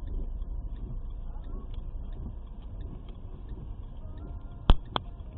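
Low rumble of a car cabin as the car rolls to a near stop on a snowy road, fading slightly as it slows. Near the end come two sharp clicks about a third of a second apart, and a third just before the sound cuts off.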